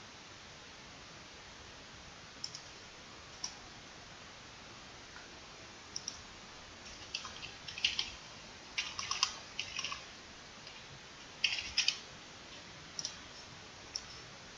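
Computer mouse clicks and keyboard key presses: a couple of single clicks, then a quick run of taps about halfway through as a folder name is typed, then a few more clicks.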